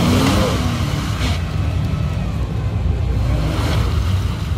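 Engine of a three-door Mitsubishi Pajero 4x4 running steadily under load as it crawls through deep mud and water. The tyres churn and splash mud.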